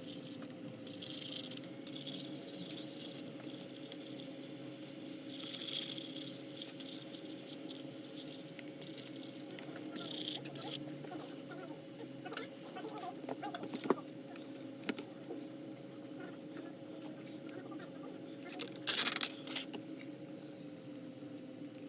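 Small hand tools scraping, tapping and clicking on a phone during an iPhone back-glass repair, over a steady electrical hum. A few sharper clicks come about 14 s in, and a louder rattle of clicks just under a second long comes near the end.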